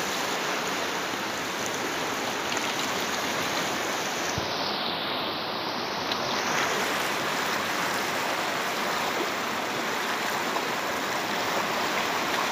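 Fast river current rushing over and around rocks: a steady wash of flowing water.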